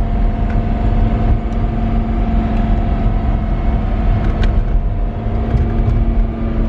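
Two-seater convertible's engine running at a steady, unchanging pitch while driving with the top down, over a heavy low road and wind rumble. The driver suspects it is not in the right gear.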